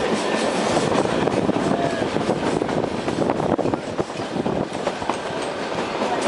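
Narrow-gauge toy train running, heard from inside a carriage at an open window: a continuous dense clatter of wheels over the rails with rushing air and carriage rattle.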